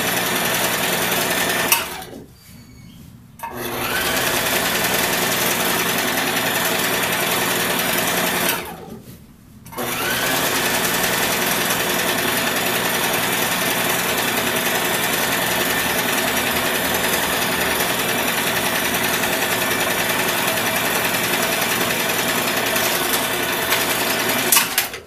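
Electric household sewing machine running steadily as it stitches a curtain hem, stopping briefly twice, about two and nine seconds in, then starting again, and stopping just before the end.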